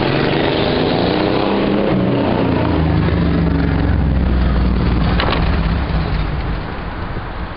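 A motor vehicle's engine running close by, a low drone that grows strongest midway and fades near the end.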